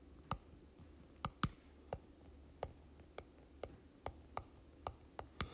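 Stylus tip clicking against a tablet screen while words are handwritten: about a dozen faint, irregular clicks, roughly two a second.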